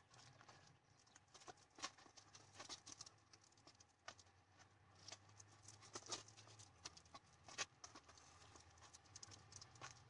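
Faint, scattered quick taps and scuffs on asphalt: a dog's paws and a flirt-pole lure hitting and dragging along the road as the dog chases it, over a low steady outdoor rumble.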